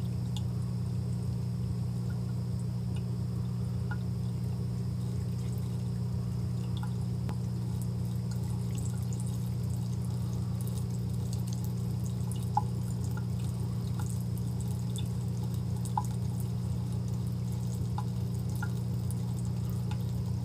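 Thin stream of water from a bathroom faucet running steadily into a porcelain sink, with scattered light ticks and drips, two of them sharper about halfway through. A steady low hum runs underneath.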